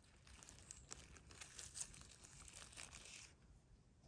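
Faint rustling and crackling of dry leaf litter as a mushroom is handled and turned over among the leaves, dying away about three seconds in.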